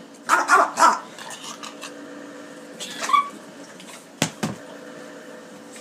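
French bulldog giving three quick barks, then a short, higher-pitched cry about three seconds in, followed by two sharp knocks.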